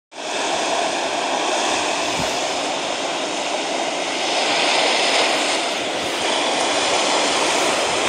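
Recorded ocean waves: a steady rushing of surf that swells slightly around the middle.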